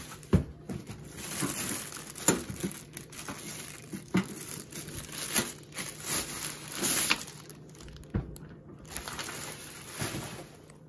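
Clear plastic wrapping crinkling and rustling in irregular bursts as it is pulled off a portable stainless steel grill case.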